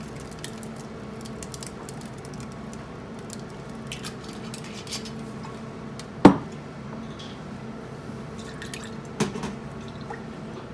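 Gin poured from a frosted bottle over ice into a copper shaker tin, a light trickle with small ice crackles. About six seconds in comes a sharp knock as the bottle is set down on the wooden bar top, and about nine seconds in a second, lighter knock.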